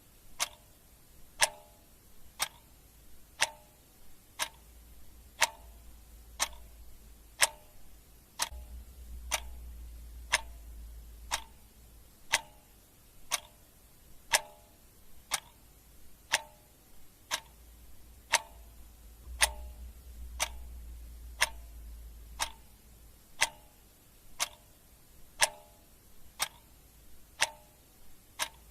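Clock ticking sound effect: one sharp tick about every second, over a faint low hum.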